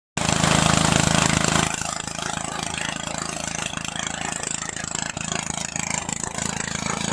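Engine of a rice thresher converted into a corn sheller, running steadily. Louder for the first second and a half, then it settles at a lower level.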